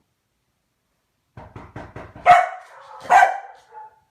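A dog barking twice, about a second apart, after a brief run of quick, rapid short sounds.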